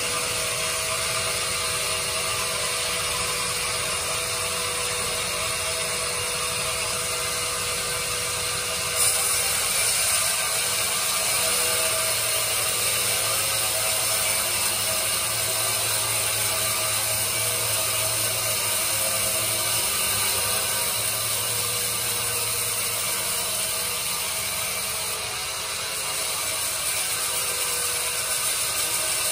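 Horizontal bandsaw mill running and sawing lengthwise through a log, a steady mechanical whir with a high hiss. About nine seconds in it gets louder and hissier, and it dips briefly near the end.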